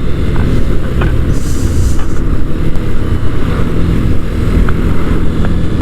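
Sinnis Akuma 125cc motorcycle engine running steadily while riding, under heavy wind rumble on the microphone. A short rush of hiss comes about a second and a half in.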